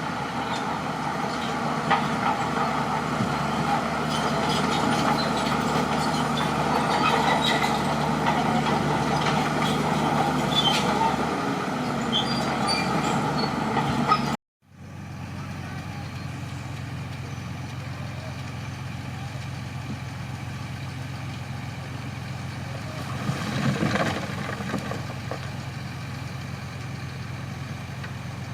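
Crawler bulldozer's diesel engine running hard with scattered clicks and knocks. It breaks off abruptly halfway through and resumes as a quieter, steady engine drone, with a brief swell near the end.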